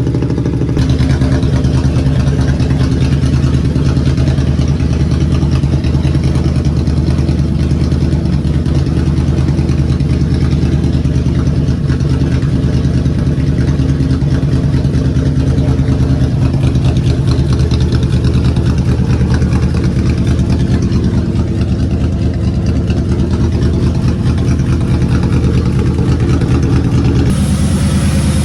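2003 Ford Crown Victoria Police Interceptor's 4.6-litre V8 idling steadily, cold and just started. It runs evenly with the misfire gone after a spark plug thread insert repair.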